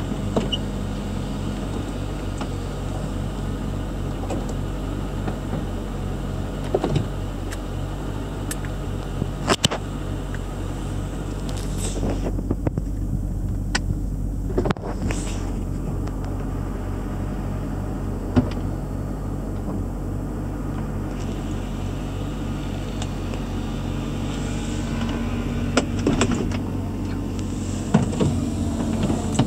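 2002 Mercedes SL 500's V8 idling steadily while its power roof moves, with scattered clunks and clicks from the roof mechanism and its latches, a few seconds apart.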